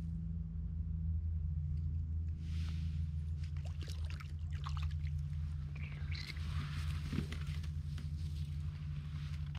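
A cutthroat trout is landed through an ice-fishing hole: splashing and trickling water as the fish comes up, then scattered scraping and rustling as it is handled on the snow. A steady low hum runs underneath.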